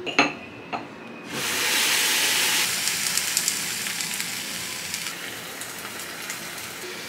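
Meat sizzling on an electric contact grill. A couple of clicks come first, then a loud sizzle sets in about a second in and eases off a little, with small crackles.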